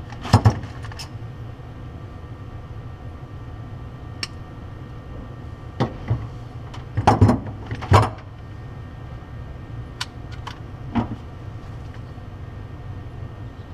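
Scattered small clicks and clatters of wire terminals and hand tools being handled during harness wiring, loudest in a cluster a little past the middle, over a steady low hum.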